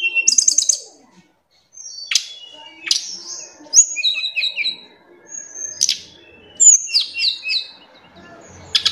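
Snowy-browed flycatcher (tledekan gunung) singing in its cage: a varied song of high, thin notes, with quick trills, sharp downward-swept calls and short falling whistles, and a brief pause about a second in.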